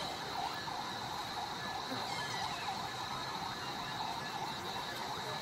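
Continuous outdoor animal chorus: a steady high-pitched drone over a constant chatter of short chirping calls.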